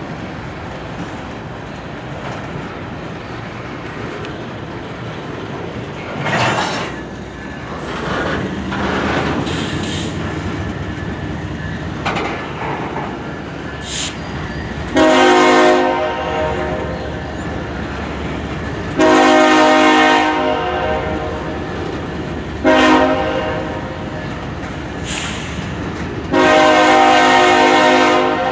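Union Pacific coal train locomotives rumbling along with wheels clicking over the rails. From about halfway through, the horn sounds the grade-crossing signal: two long blasts, one short and a final long one.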